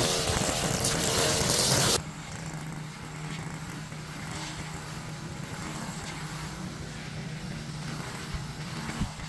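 Gas-powered lawn equipment engine running loud and hissy for about two seconds, then an abrupt switch to a quieter, steady engine hum. A single sharp click near the end.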